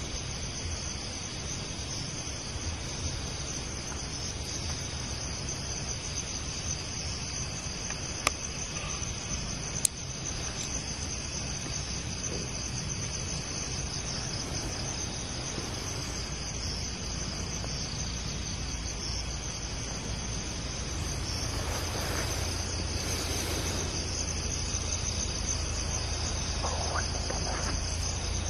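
Steady chorus of night insects, a continuous high trilling like crickets. Two sharp clicks come about eight and ten seconds in, and the background grows a little louder and noisier in the last third.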